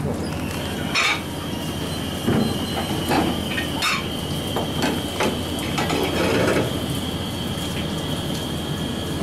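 A utensil knocking and clinking against a metal pot as pasta is stirred in hot water, a scatter of light irregular taps, over a steady low hum and a thin, steady high-pitched whine.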